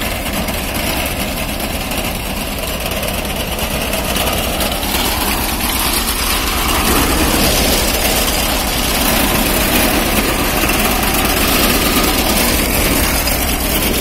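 Tractor diesel engine running steadily under a front-mounted Hardeep reaper whose cutter bar is mowing through dry standing crop, a continuous mechanical clatter that grows somewhat louder about halfway through.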